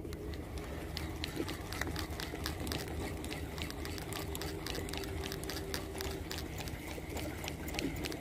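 Fishing reel being wound in to retrieve a lure, a fast run of small mechanical clicks over a low steady rumble.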